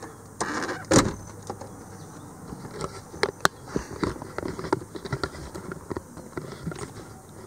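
Footsteps on pavement and knocks from a hand-held camera being carried, in an irregular run of short clicks with one sharper knock about a second in.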